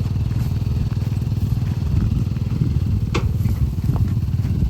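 A vehicle engine running steadily at low speed, with one short sharp knock about three seconds in.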